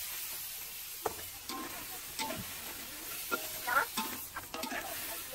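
Food frying in a pan with a steady sizzling hiss, and a utensil stirring it, scraping and clinking against the pan several times.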